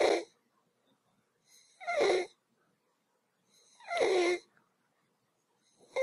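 A child's stridor: a noisy, whistling breath sound on each breath in, repeating about every two seconds. It is the sign of swelling in the upper part of the throat, a dangerous condition when the child is calm.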